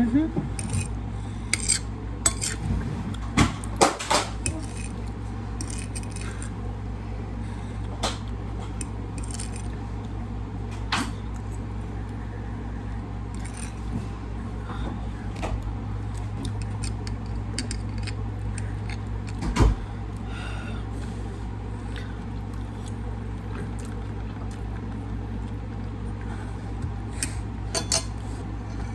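Cutlery clinking and scraping against a plate every now and then, most often in the first five seconds and only a few times after, over a steady low hum.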